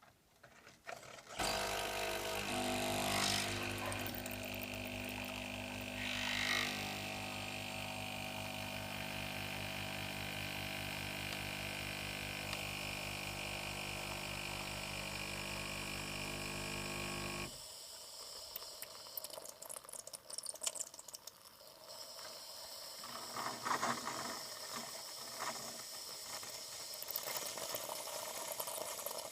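Bosch Tassimo pod coffee machine brewing: its pump starts about a second in and runs with a steady hum while coffee pours into the cup, then cuts off suddenly after about sixteen seconds. Fainter, irregular liquid sounds follow.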